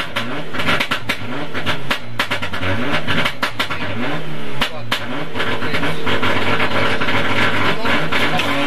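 Rally-prepared Mitsubishi Lancer Evolution's turbocharged four-cylinder engine heard from inside the cabin, driven hard with the revs climbing and dropping again and again as it shifts through the gears. Sharp pops and cracks sound through the first five seconds or so.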